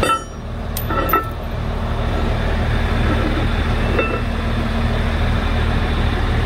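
An engine idling with a steady low hum, under a few sharp metallic clinks as a truck's axle shaft is drawn out of the wheel hub: one near the start, one about a second in, and one about four seconds in.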